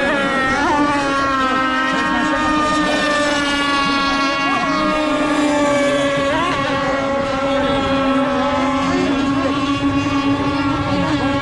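Radio-controlled racing monohull boats' small two-stroke engines running flat out around the course: a steady, high-pitched buzz with small dips and rises in pitch as the boats turn.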